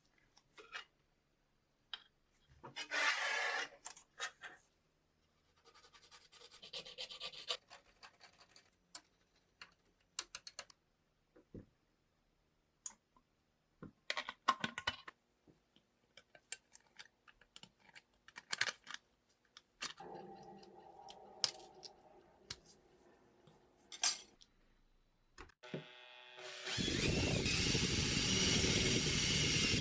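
Workshop handling sounds: scattered clicks, taps and scraping or rubbing of small parts and tools. Near the end a power tool's motor spins up and runs loudly and steadily, like an electric drill.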